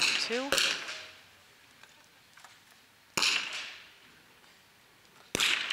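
.22 rimfire target rifles firing single shots in an indoor range hall: four sharp cracks. Two come in quick succession at the start, one about three seconds in and one near the end, each trailing off in a short echo.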